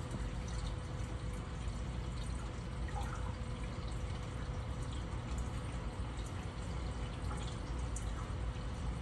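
Reef aquarium water circulating: a steady trickling, dripping wash over a low rumble, with a faint steady hum.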